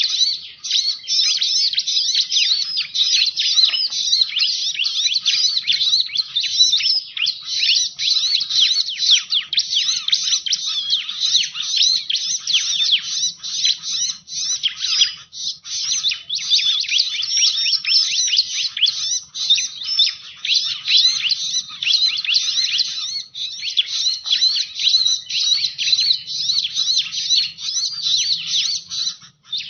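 Ciblek, a small prinia, calling as a bird-trapping lure recording: a dense, unbroken run of rapid high-pitched chirps and trills.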